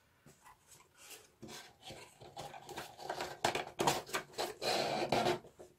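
Corrugated cardboard pieces scraping and rubbing against each other and the tabletop as a slotted cardboard sculpture is handled and fitted onto a cardboard-tube stand, with a few light knocks. It starts soft and gets louder in the second half.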